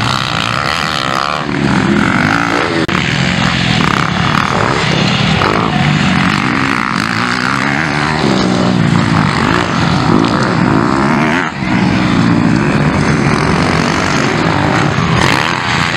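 Motocross dirt bike engines revving hard and dropping off as bikes race past on the track, the pitch climbing and falling repeatedly with each acceleration and gear change.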